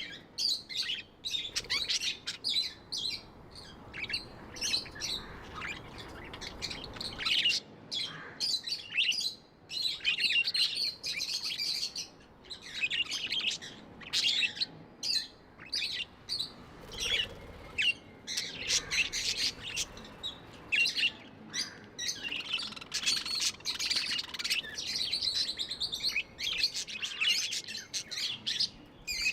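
Budgerigars chattering and chirping continually, a dense run of short high chirps and warbles with no pause.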